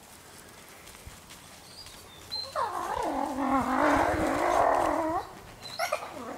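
Grey wolves whining and yelping, several rising and falling cries overlapping for about three seconds, then one short cry near the end.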